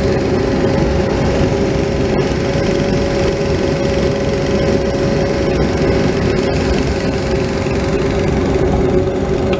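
Bobcat 337 mini excavator's diesel engine running steadily, heard from inside the cab, with a steady hum held over the engine noise as the boom and bucket work the dirt.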